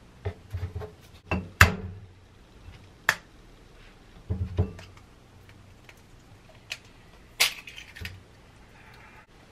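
A run of sharp clicks and knocks as kitchen things are handled and set down, then a hen's egg tapped sharply against the rim of a glass bowl about seven and a half seconds in and broken open into it.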